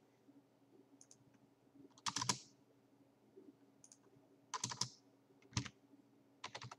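Computer keyboard keys tapped in a few short clusters of quick keystrokes, the clearest about two, four and a half, five and a half and six and a half seconds in, with a faint steady hum underneath.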